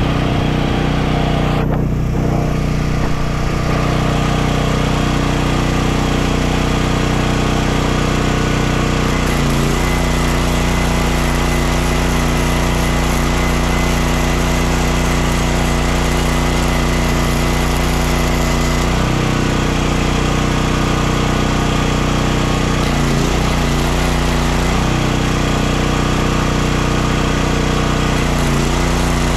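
Champion 10,000-watt dual-fuel portable generator engine running steadily under the load of a flux-core wire welder, with the crackle and hiss of the welding arc at times. The engine note shifts briefly a few times as the arc starts and stops, then steadies again without surging: the generator is keeping up with the load.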